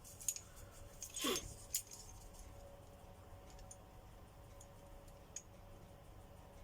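A few light metallic clicks and a short squeak from a bearing puller and hand tools being worked on a vacuum-cleaner motor's shaft, then only faint occasional ticks.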